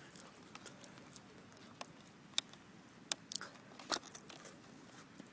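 Plastic and cardboard packaging handled as a toy blaster is worked free of its box: a few scattered sharp clicks and crackles, the loudest about two and a half, three and four seconds in.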